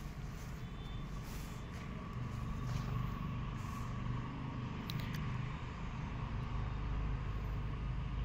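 A motor vehicle's engine running steadily with a low hum, growing a little louder about two seconds in.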